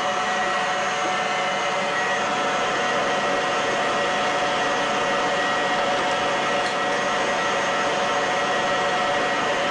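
KitchenAid stand mixer running steadily with its whisk whipping heavy cream: an even motor whir with a steady whine.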